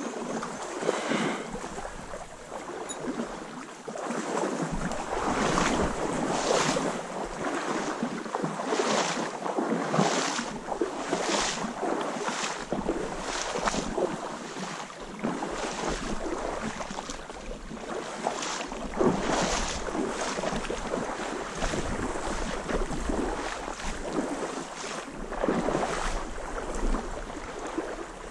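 Wading through a shallow stream: water sloshing around the legs about once a second with each step, over the rush of the current. Wind rumbles on the microphone at times.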